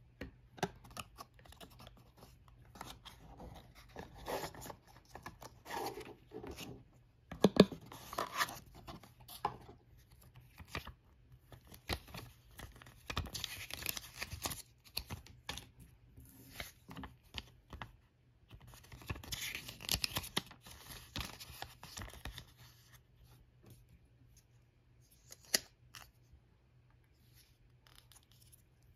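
Hands handling a small white cardboard box and its paper insert: flaps and card clicking and scraping, and paper rustling and crinkling in two longer stretches partway through, with scattered sharp taps, the loudest about a quarter of the way in.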